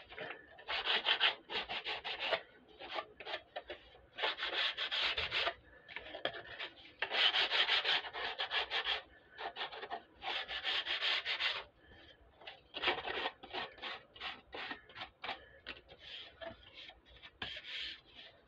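Hand sanding with a folded piece of sandpaper along the edges of a bent wooden frame, breaking its sharp edges. The scratchy strokes last a second or two each at first, then come shorter and quicker in the second half.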